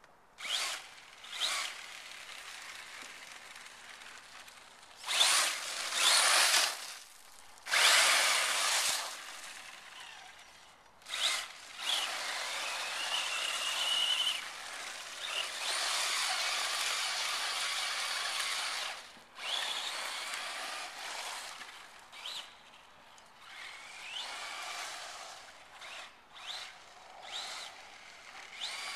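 Traxxas Slash 4x4 Ultimate RC truck's brushless electric motor whining in repeated bursts as it is throttled up and down, with tyre noise on asphalt. The whine rises in pitch on acceleration, and the loudest bursts come about five and eight seconds in.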